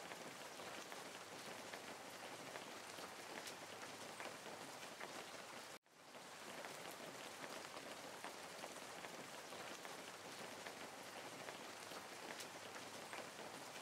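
Steady, even rain-like hiss dotted with fine crackles. It cuts out abruptly about six seconds in and swells back up within about a second.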